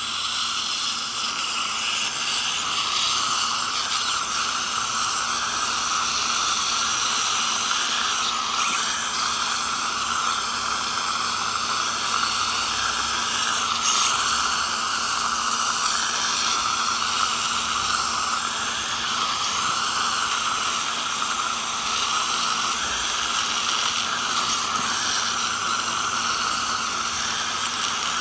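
Ultrasonic dental scaler and suction tube running together during scaling of heavy tartar: a steady hiss with a high whine, dipping briefly every few seconds as the suction draws.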